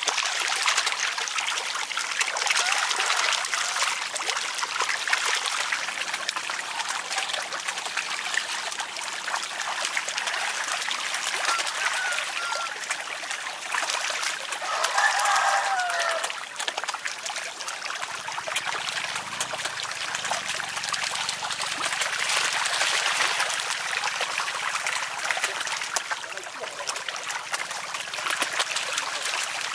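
Shallow pond water splashing and churning steadily as crowded snakehead fish thrash at the surface, a dense crackle of small splashes.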